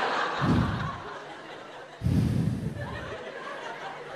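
Live audience laughing. The laughter eases, then breaks out again suddenly about two seconds in and slowly fades.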